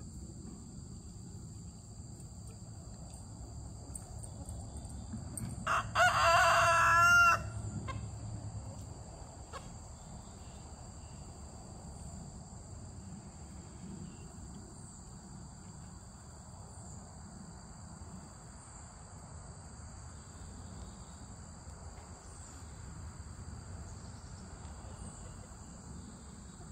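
A rooster crows once, about six seconds in, in one loud wavering call lasting about a second and a half. Under it runs a steady high-pitched insect drone.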